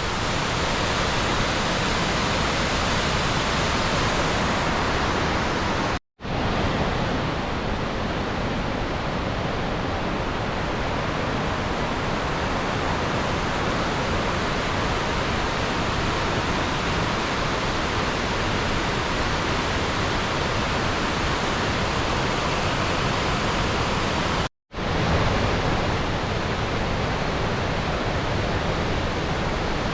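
Steady rush of the Selfoss waterfall, one even, unbroken wash of noise. It drops out to silence twice for a split second, about six seconds in and again about five seconds before the end.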